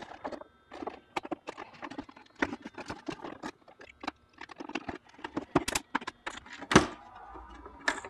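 Irregular plastic clicks, creaks and knocks as the two halves of an InMotion V8F electric unicycle's plastic shell are pried apart by hand, the seam held by a bead of silicone. One louder knock comes near the end.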